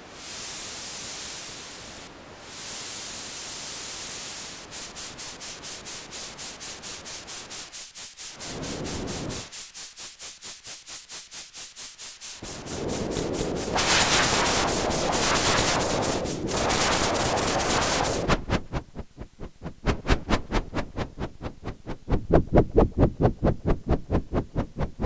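White/pink noise from a voltage-controlled noise and tone filter module built on the TDA1524 tone-control chip. An envelope generator and the treble control voltage shape it into a steady hiss, then rapid even pulses, then a swelling whoosh meant to mimic a thrown boomerang, and finally uneven pulsing bursts.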